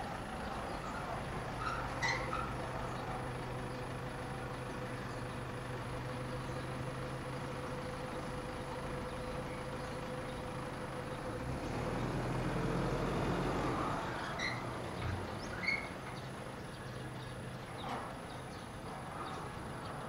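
Steady low hum of a motor vehicle's engine, swelling louder for a couple of seconds about twelve seconds in as if a vehicle passes, with a few faint short chirps.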